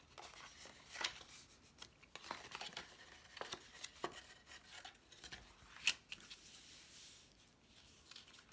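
Cardstock card pieces being handled and folded: faint paper rustles with scattered light clicks and taps, one sharper click near the middle.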